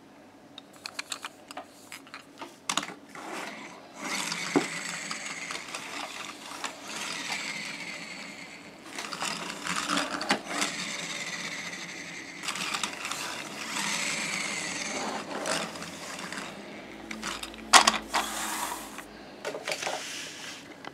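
Pull-back toy train of the DR2000 railcar: a run of small plastic clicks, then its spring-wound pull-back motor's gears whirring in four bursts of a few seconds each as the train is rolled on a table, the whine falling as the motor spins down. A sharp knock near the end.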